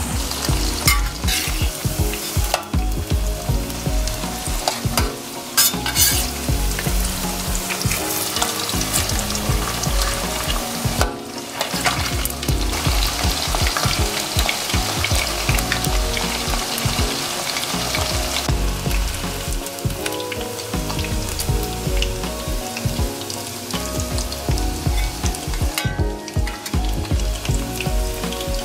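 Chicken pieces, marinated and coated in egg and corn flour, deep-frying in hot oil in a stainless steel wok: the oil bubbles and sizzles steadily, and a metal spoon stirs the pieces now and then.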